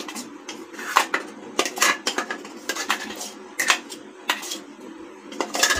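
A steel spoon scraping and clinking against the inside of a stainless steel mixer-grinder jar, scooping out thick ground dal paste. The clinks come irregularly, a dozen or so, the loudest near the end.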